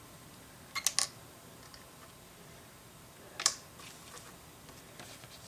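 Small sharp clicks of LEGO plastic pieces being handled: a quick pair about a second in, then a single louder tap a little past the middle as a transparent tile is set down on the table, with a few faint ticks after.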